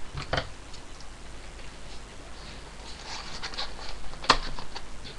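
Small boxes of toy figures being handled and shifted out of a larger box: scattered rustles and light knocks of packaging, with one sharp click about four seconds in.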